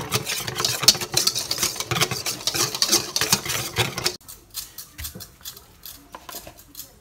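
Wire whisk beating flour batter in a stainless steel bowl: fast, continuous scraping and clicking of the wires against the metal. It stops abruptly about four seconds in and gives way to softer, scattered clicks as the whisk works through seaweed in the batter.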